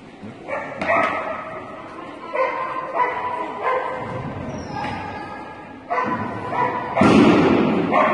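A dog barking excitedly over and over, short barks coming every second or so, with a louder rushing burst of noise about seven seconds in.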